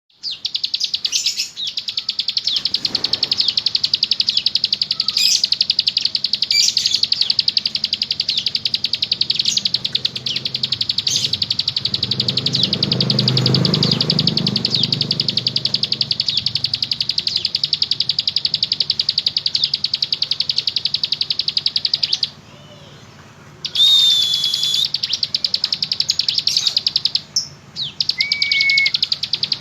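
A ciblek gunung songbird singing a long, very fast buzzing trill in rapid-fire bursts ('nembak ngebren'). The trill breaks off once about 22 seconds in, and a few clear whistled notes follow. A low rumble swells and fades in the background midway.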